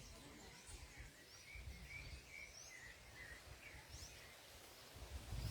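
Faint chirping of wild birds: a run of short chirps in the middle, with a few thin, higher calls scattered through, over a low, uneven rumble.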